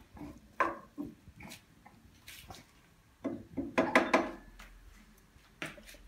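Wooden spoon scraping and knocking against a granite-coated pot while chopped onion and peppers are stirred: a string of short, separate scrapes and taps, the loudest cluster about two thirds of the way through.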